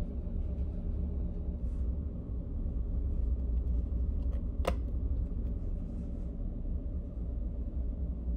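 Steady low hum of the ferry's machinery inside a passenger cabin, with one sharp tap about halfway through as the stiff menu folder is handled on the wooden desk.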